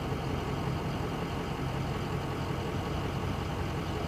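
A vehicle engine idling steadily, a low even hum with no change in pitch.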